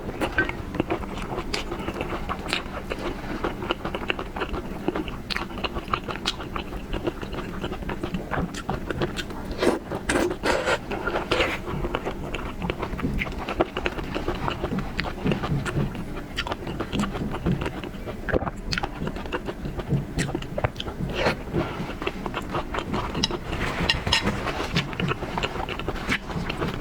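Eating sounds of someone biting and chewing seafood, with irregular crunches and wet clicks throughout.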